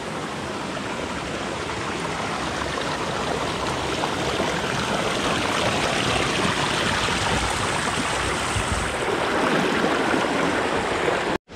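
Morgan Falls, a 70-foot waterfall at low flow, spilling over rock: a steady rush of falling water that cuts off suddenly near the end.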